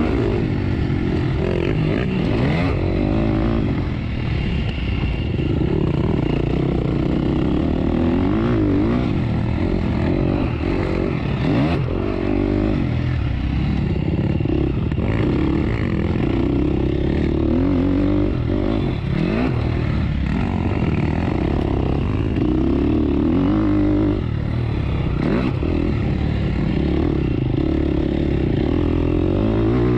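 Off-road motorcycle (dirt bike) engine being ridden, its revs rising and falling constantly with the throttle and gear changes, with a few knocks from the bike.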